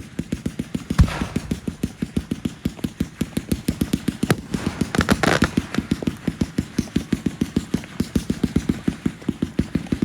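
Fireworks going off in a rapid, steady string of sharp reports, about eight a second, with one louder bang about a second in and a spell of crackling around the middle.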